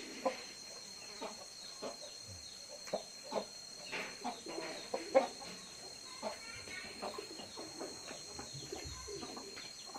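Domestic chickens clucking in short, scattered calls, over a faint steady high-pitched tone.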